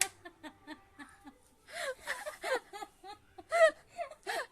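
People laughing and giggling in short repeated bursts just after a sneeze, with the loudest laugh about three and a half seconds in.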